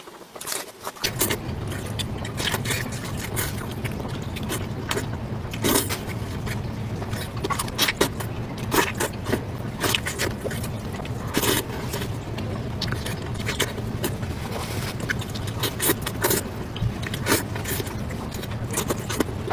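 Close-miked eating sounds: irregular crunching and clicking bites and chews, over a steady low hum that starts about a second in.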